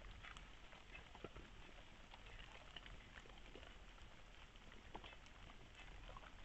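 Near silence with faint, irregular small clicks and rustles of a red fox nosing and foraging on gravelly ground, over a steady low hiss.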